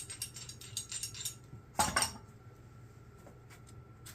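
Light metallic clinks and taps of metal parts being handled, with one louder clank a little under two seconds in.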